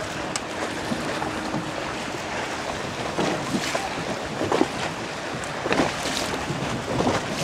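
Wind buffeting the microphone over choppy open water, with several short bursts of splashing water in the second half.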